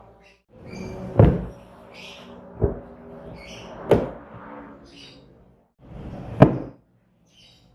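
Four sharp knocks, as of household handling: a door or cupboard closing, or things being set down.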